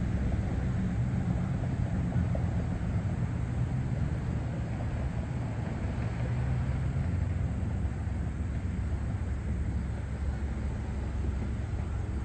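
Steady low outdoor rumble with no distinct events, easing slightly in the second half.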